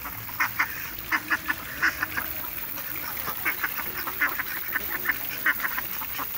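Domestic ducks quacking: many short, sharp quacks in quick irregular runs, often two or three close together.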